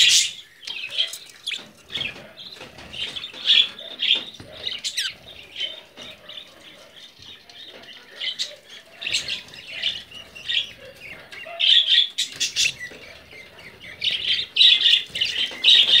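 Budgerigars chattering and squawking: a steady run of short, scratchy calls in clusters, busiest toward the end.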